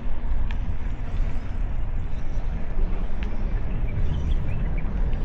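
Wind buffeting the microphone of a bike-mounted action camera while cycling: a loud, constantly shifting low rumble. A few faint high chirps sound near the end.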